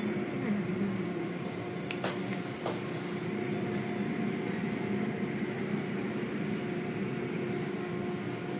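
Automatic tunnel car wash equipment running: a steady mechanical hum of motors and pumps under the hiss of water spray and flapping cloth strips, with two short clicks about two seconds in.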